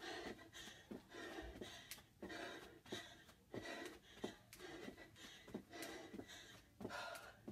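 A woman breathing hard in quick gasps while doing half burpees, with the soft thuds of her sneakers landing on a rug, a short knock every half second to a second.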